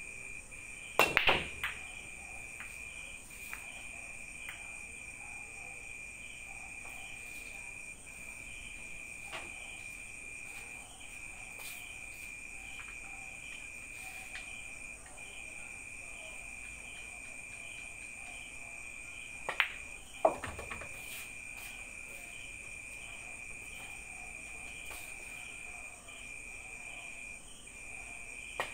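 Nine-ball break: a cue tip striking the cue ball about a second in, then a sharp clatter of pool balls cracking into the rack and each other. Another shot's cue and ball clicks come about two-thirds of the way through, over a steady, pulsing high insect trill.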